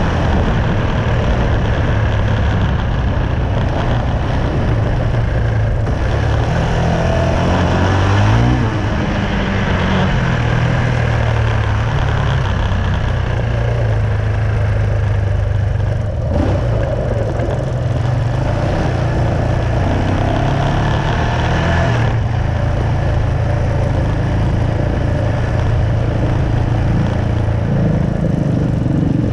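Yamaha Raptor 700 quad's single-cylinder four-stroke engine running steadily on a dirt trail, with a brief rise and fall in revs about eight seconds in.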